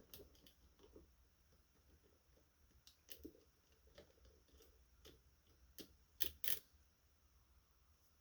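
Faint, scattered metallic clicks of a key being worked into and turned in a Schlage Primus (Everest) lock cylinder, with two louder clicks a little over six seconds in.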